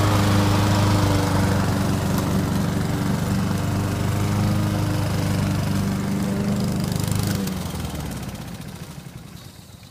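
Walk-behind gas lawn mower engine, rigged to run on gasoline vapor drawn from its own tank, running steadily as it is pushed across grass. About seven seconds in the engine cuts out and the sound dies away.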